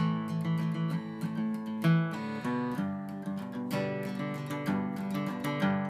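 Background acoustic guitar music: quick plucked and strummed notes in a steady rhythm.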